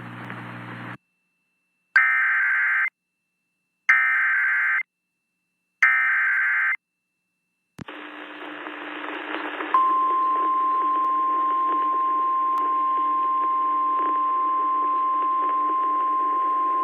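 Emergency Alert System signalling on an FM radio relay. Three short screechy digital data bursts of EAS/SAME code, each just under a second and about two seconds apart, come right after the previous announcement ends. Then a click opens a hissy relayed weather-radio feed, and about two seconds later the National Weather Service's steady 1050 Hz warning alarm tone begins and holds.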